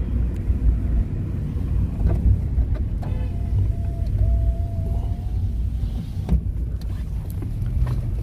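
Steady low rumble of a car's engine and tyres on the road, heard from inside the cabin while driving. A faint thin tone comes in about three seconds in and wavers for a couple of seconds.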